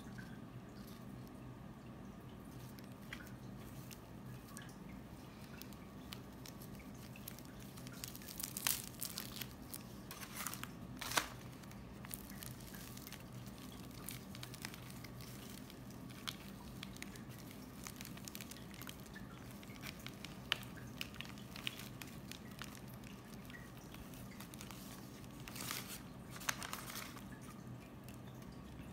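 Newspaper packing crinkling and rustling, with moss being handled, as a plant is unwrapped by hand: short bursts about eight to eleven seconds in and again near the end, over a faint steady low hum.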